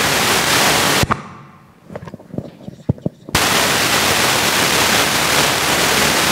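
Audience applause in two bursts: a dense spell that breaks off about a second in, a lull of scattered single claps, then a second dense spell about three seconds in.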